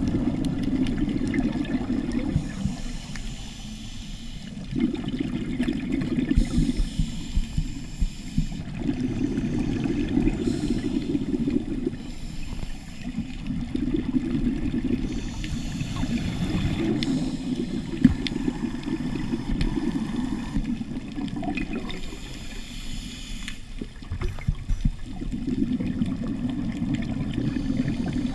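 Scuba diver breathing through a regulator, heard underwater: bubbling exhalations alternate with a hissing inhale in a slow rhythm, a breath about every four seconds. One sharp click about eighteen seconds in.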